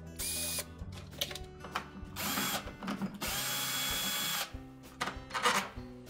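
Cordless drill-driver spinning out screws from a dishwasher's inner door panel: the motor whines in several short runs, the longest about a second long in the middle.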